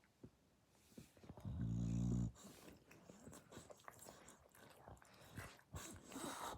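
Sleeping dog snoring: one loud, low snore about a second and a half in, lasting under a second, with softer breathy sounds near the end.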